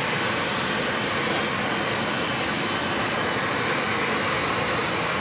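Jet engines of a taxiing Airbus A321 and Boeing 777-300ER: a steady rush of engine noise with a faint steady hum underneath, holding level throughout.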